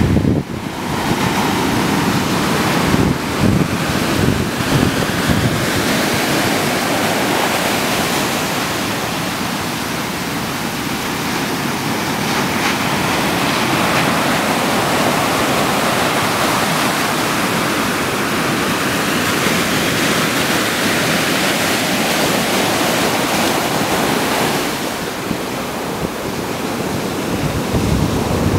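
Indian Ocean surf washing in as a steady rush of waves. Wind buffets the microphone, with low gusts in the first few seconds.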